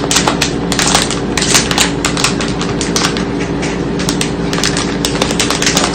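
Dense, irregular crunching of fried garlic corn kernels (Boy Bawang) being chewed, over a steady low hum.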